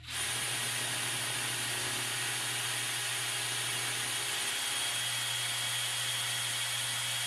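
Cordless drill running steadily, a constant high motor whine over a hiss, starting abruptly. It is turning the input of a 3D-printed fluid coupler whose output end is locked, so the oil inside churns and heats.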